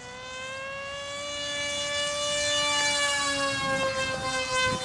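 Electric motor and 7x5 propeller of an RC foam jet model whining at full throttle in flight: one steady high tone that grows louder over the first couple of seconds, its pitch sagging slightly in the second half.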